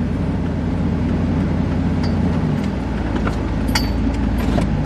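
Car engine running steadily as the vehicle backs up a few feet, with a few faint clicks.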